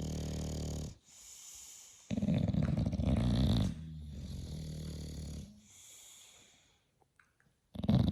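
Bulldog snoring in deep sleep: a run of rattling snore breaths, some loud and some softer, with a short quiet pause about seven seconds in before another loud snore starts.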